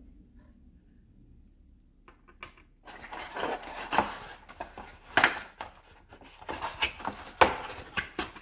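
Cardboard inner tray of a tablet box being pulled apart and handled: scraping and rustling of the cardboard inserts with a few sharp knocks, starting about three seconds in after a quiet stretch.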